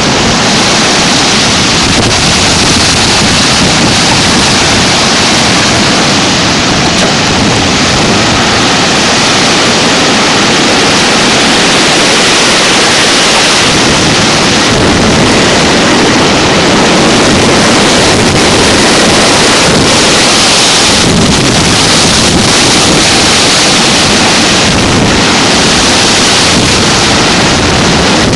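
Strong storm wind blowing across the microphone: a loud, steady rushing noise with no let-up.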